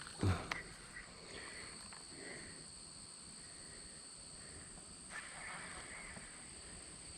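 Faint outdoor ambience with insects droning steadily at two high pitches. A brief louder sound comes about a third of a second in, then faint scattered rustles.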